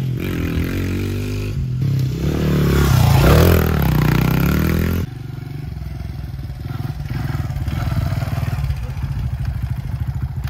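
2003 Honda XR100R dirt bike's single-cylinder four-stroke engine, revving up and down as the bike is ridden. About five seconds in it drops abruptly to a quieter, steady note at low revs.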